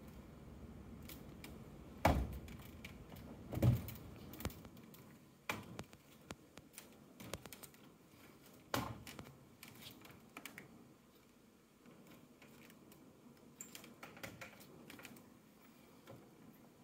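Dell UltraSharp U2410 monitor being twisted, tilted and rotated on its stand by hand: scattered clicks and knocks from the monitor and its stand joint, the loudest two knocks about two and three and a half seconds in.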